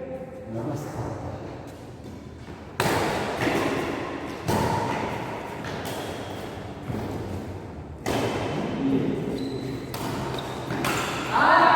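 Badminton rally: rackets striking a shuttlecock about ten times, a sharp hit roughly every second, echoing in a large hall.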